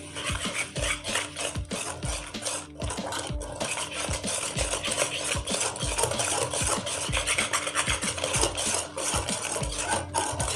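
Wire whisk beating a thick egg, khoya and sugar batter in an aluminium pot, with quick repeated scraping strokes against the metal.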